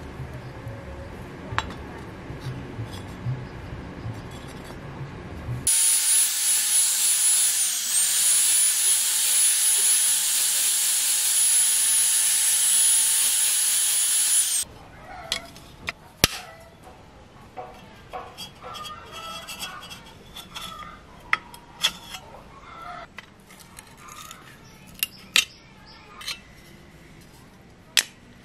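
A high-speed power tool grinding or cutting metal for about nine seconds from roughly six seconds in: a loud hiss with a steady high whine that dips briefly as the tool bites. Before and after it, scattered clicks and knocks of metal parts being handled.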